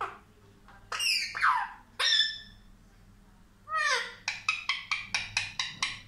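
Indian ringneck parrot calling: a few loud, falling squawks in the first couple of seconds, then a fast run of short repeated calls, about five a second, through the last two seconds.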